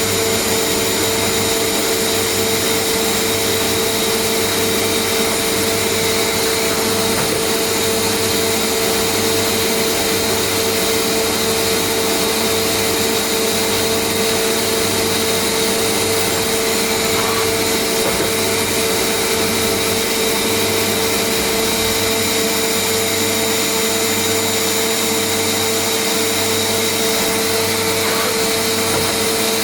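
Mazak FH580-40 horizontal machining centre running under power: a loud, steady whine over a constant hum, unchanging throughout.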